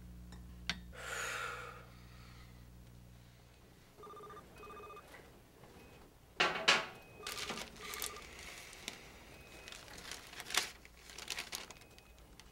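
A telephone ringing in short paired rings, mixed with rustling and clattering handling noises, the loudest a sharp clatter about six seconds in. A brief rushing swoosh comes about a second in.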